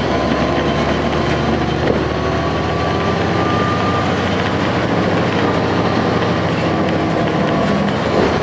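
2009 NABI 416.15 transit bus with a Caterpillar C13 ACERT diesel and ZF Ecomat automatic transmission, running under way as a steady diesel drone. A faint high whine rides over it, rising a little in pitch during the first few seconds.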